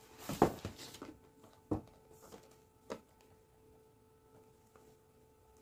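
A few soft taps and rustles from a cardboard phone box being handled, over a faint steady electrical hum.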